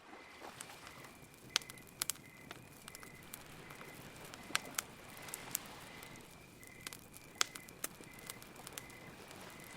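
Campfire crackling, with irregular sharp pops over a steady low hush. A faint high chirp repeats steadily in the background.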